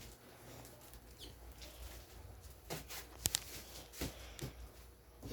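Light handling noises of kitchen things on a counter: scattered taps and knocks, with two sharp clicks in quick succession a little after three seconds in.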